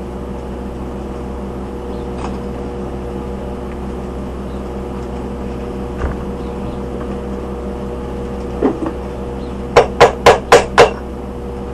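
A hammer striking the metal of a welded bush hog wheel hub five times in quick succession, about five blows a second, near the end, over a steady hum.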